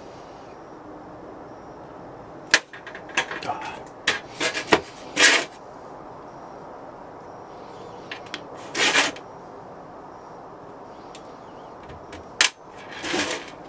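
Handling sounds of a 3D-printed plastic pattern being worked loose and lifted out of a packed sand casting mould: a run of sharp clicks and short scraping rubs about two to five seconds in, another scrape near the middle, and a click and a scrape near the end.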